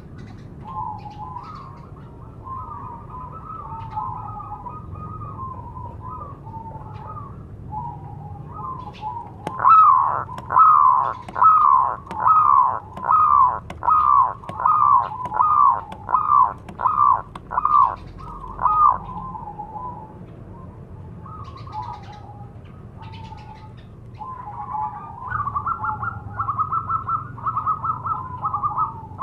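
Zebra dove (perkutut) cooing: soft bubbling coos at first, then about ten seconds in a run of about a dozen loud, clipped coos at roughly one and a half a second. Softer coos follow, and near the end a fast rapid series. It is the perkutut's call to lure other doves.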